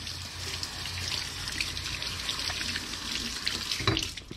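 Kitchen faucet running into a stainless steel sink while hands are rinsed under the stream, with a short knock near the end.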